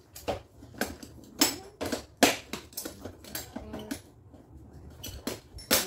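Hard plastic clacks and clicks as the clear compartment lid of a Keter plastic utility organizer is shut and pressed down. About a dozen sharp, irregular knocks, with one of the loudest near the end.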